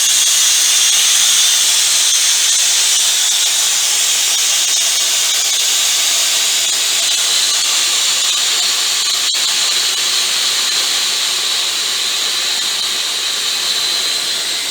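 Compressed air hissing steadily out of the bottom drain valve of a 40-litre auxiliary air tank, blowing out the condensed water inside. The hiss grows slowly quieter as the tank's pressure falls.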